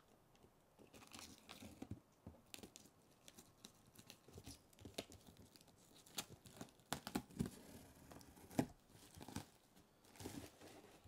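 Pocket knife slitting the packing tape on a cardboard box: faint, irregular scratches, light taps and tape tearing against the cardboard.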